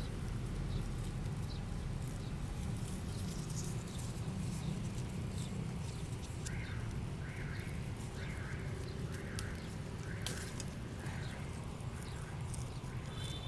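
Seven short animal calls, evenly spaced about two-thirds of a second apart, starting about halfway through over a steady low outdoor rumble, with a few faint clicks.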